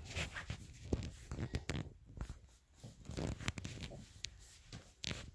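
Handling noise: scattered light clicks and rustling as the rifle and camera are moved about on the shooting rest.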